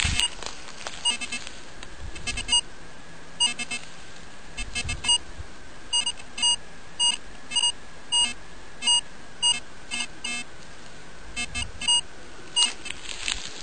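IGSL metal detector giving short, same-pitched beeps, scattered at first and then about two a second midway, as its search coil sweeps over the ground. Each beep is a target signal: the ground is full of buried metal trash.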